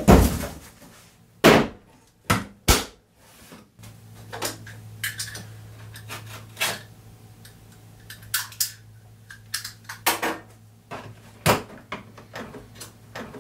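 Hard plastic tool case being handled and unpacked on a workbench: a string of sharp clicks and knocks, with the loudest in the first few seconds. From about four seconds in, a low steady hum runs underneath.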